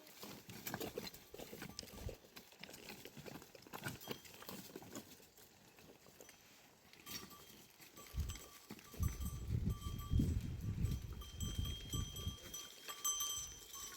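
Goat herd with bells: scattered clinks and faint ringing from the animals' bells. A low rumbling noise swells about eight seconds in and is the loudest thing until about twelve seconds.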